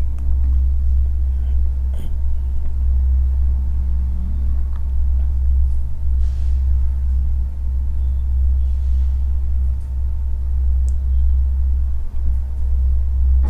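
Steady low rumble with a faint thin whine over it.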